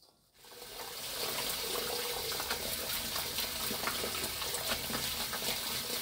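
Kitchen tap spraying water into a stainless steel bowl of mugwort leaves, starting about half a second in and then running steadily, with small splashes as gloved hands stir the greens in the water.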